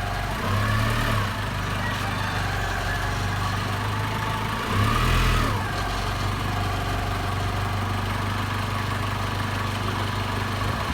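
Nissan 3-ton forklift engine idling steadily, revved briefly twice, the pitch rising and falling back each time.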